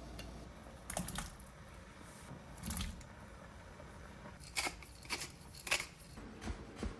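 Cubes of daikon radish dropping into a pot of broth, then a pepper mill twisted over the pot in several short grinds.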